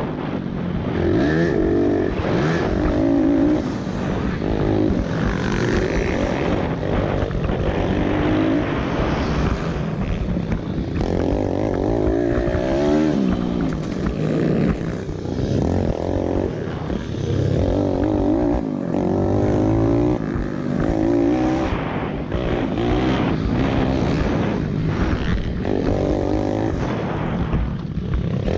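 Pit bike's single-cylinder four-stroke engine revving hard and shutting off again and again, its pitch rising and falling every second or two. It is heard from a camera on the rider's helmet.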